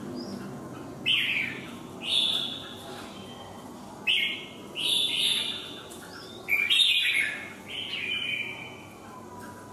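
Red-whiskered bulbul singing short, bright phrases, about six of them, spaced roughly a second apart.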